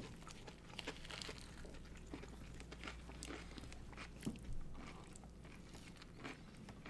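Close-miked eating sounds: biting and chewing crunchy food, a scatter of small crisp crunches.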